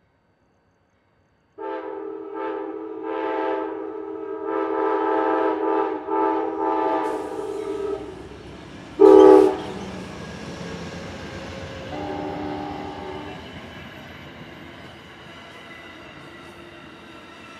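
Amtrak diesel passenger locomotive's multi-note air horn sounding several blasts for a grade crossing, starting about a second and a half in, then one short, very loud blast as it passes. The horn gives way to the steady rush and rumble of the passenger cars rolling by.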